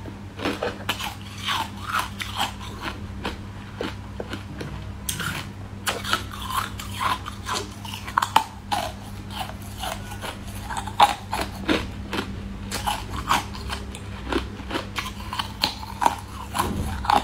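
Close-miked eating of a translucent green fish-shaped treat: crisp bites and wet chewing clicks in quick succession, with a few louder crunches. A faint steady low hum underneath.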